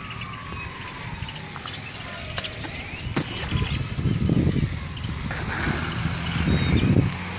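Offshore Infinity RC boat's electric motor and three-blade propeller whining out on the water, the pitch falling steadily over the first three seconds, amid irregular low rumbling.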